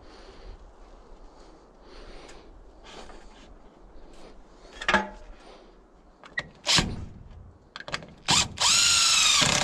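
A few wooden knocks as the brace is set against the post, then near the end a cordless drill spins up and drives a screw into the wooden brace, its motor whine rising briefly and then holding steady.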